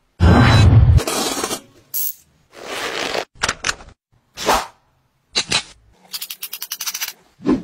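A string of short, separate metallic sounds from a steel roller chain being handled and worked with a chain-breaker tool: a loud burst in the first second, then clicks and rattles, and a fast run of ticks about six seconds in.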